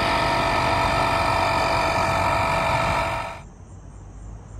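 A loud, steady mechanical drone, engine-like, with several steady tones over a pulsing low rumble, cutting off abruptly about three and a half seconds in and leaving a faint background.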